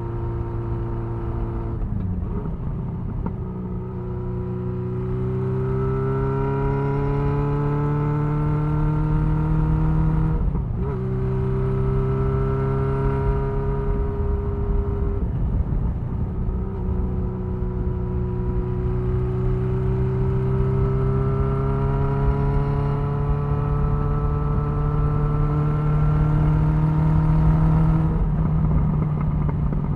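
1975 Honda CB550F's inline-four engine running at road speed, its note climbing slowly and breaking briefly a few times, with wind rushing over the microphone.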